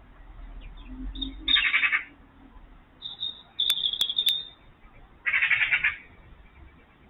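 Two short rattling animal calls, each a rapid pulsed chatter about half a second long, about a second and a half in and again near the five-second mark. Between them comes a thin steady high tone with three sharp clicks.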